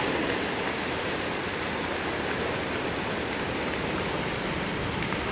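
Rain of a rainstorm falling steadily: a dense, even hiss with scattered faint drop ticks.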